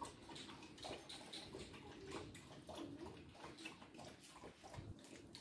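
Border collie puppy lapping water from a plastic bowl: faint, irregular wet laps and splashes.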